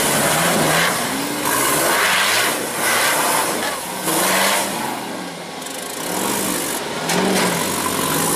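Off-road rock crawler buggy's engine revving hard in repeated bursts as the buggy climbs a rock step, its pitch rising and falling several times. Spinning tyres and flying grit add bursts of noise.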